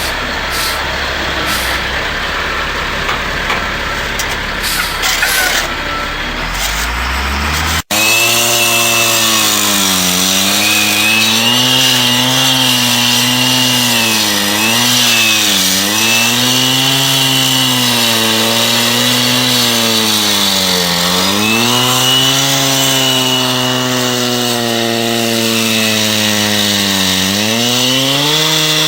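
A steady engine runs for the first several seconds. After a sudden break, a high-revving motor takes over, its pitch dipping and recovering again and again as it comes under load, with a thin whine above it.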